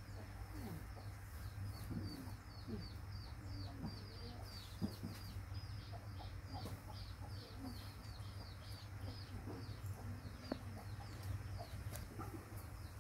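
Birds calling: a steady run of short, high, falling chirps, about three or four a second, thinning out near the end, with scattered lower calls among them. A steady low hum runs underneath.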